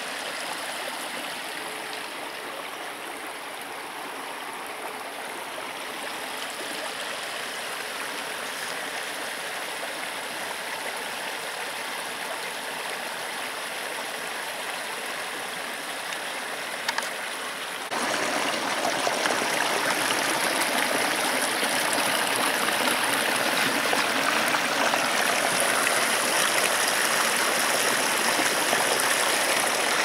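Small taiga stream flowing, a steady rush of water; about eighteen seconds in it suddenly becomes louder and stays that way.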